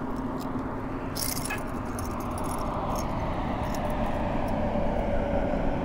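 Light metallic jingling and clicking of a buzzbait's blade and hooks as a small bass is handled and unhooked, strongest about a second in, over a steady rush of wind on the microphone.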